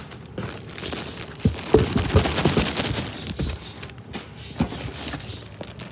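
Clear plastic bags and packing material crinkling and rustling as plush toys are handled in a cardboard box, with a run of crackles and light knocks that is densest in the middle.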